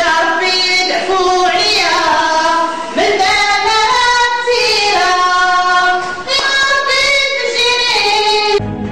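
A high female voice singing a wavering melody with no instruments behind it. Just before the end it gives way to instrumental music with a strong bass.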